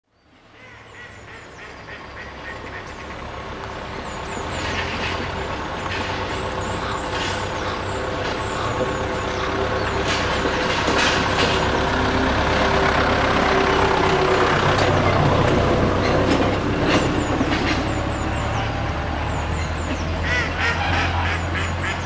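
A steady low rumble of a vehicle that grows louder, with short bird calls and a few clicks over it.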